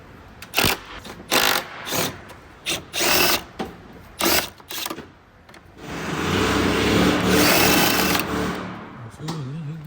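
Power drill run in several short bursts, then held for a longer run of about two and a half seconds, backing out the fasteners that hold a Jeep's headlight and front-end parts.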